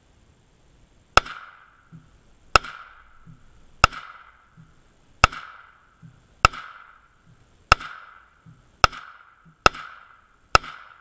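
Robinson Armament XCR-L semi-automatic rifle firing 7.62×39mm Romanian surplus rounds: nine shots about one every second and a quarter, coming a little faster near the end. Each shot has a ringing tail and a faint low thud after it. The gas system is set at #1 and the rifle is cycling reliably.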